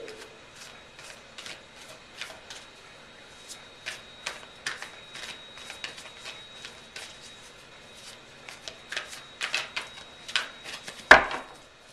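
A tarot deck being shuffled overhand: irregular soft slaps and flicks of cards falling from hand to hand, with one much louder knock near the end.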